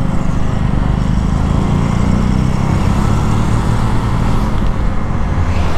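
A small motorcycle engine running steadily at cruising speed, heard from the rider's own bike, with rushing wind noise over the camera microphone.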